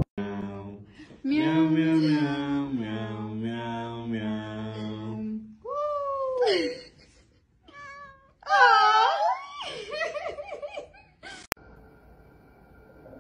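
A person singing in held notes, then a house cat meowing twice: drawn-out meows that rise and then fall in pitch.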